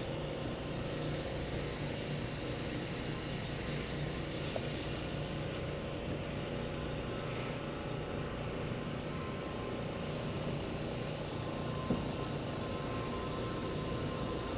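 A steady low engine drone, with a small click about four and a half seconds in and another near twelve seconds.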